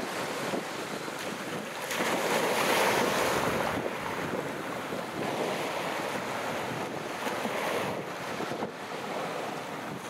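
Sea waves breaking and washing on the shore, with one wave swelling loudest about two to four seconds in, and wind buffeting the microphone.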